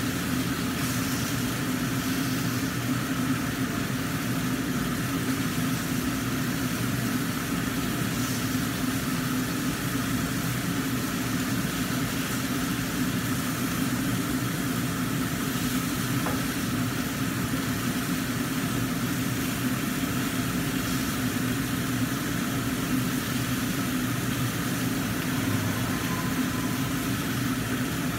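Steady hum of a kitchen range hood fan running over a covered wok, with mackerel frying under the lid.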